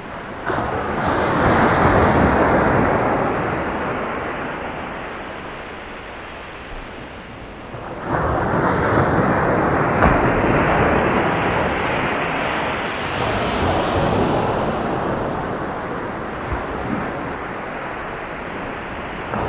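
Sea waves breaking on a beach: one wave crashes about half a second in and washes out over several seconds, then a second crashes suddenly about eight seconds in and slowly ebbs.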